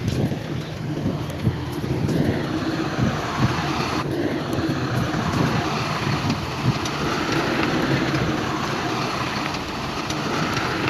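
Heavy diesel earth-moving machinery running steadily, with scattered faint clanks; the sound changes abruptly about four seconds in.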